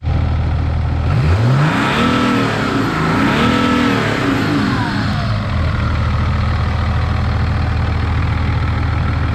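BMW M57 3.0-litre straight-six turbodiesel, swapped into a Nissan Patrol Y61, idling under the open bonnet. About a second in it is revved twice in quick succession, then it drops back to a steady idle.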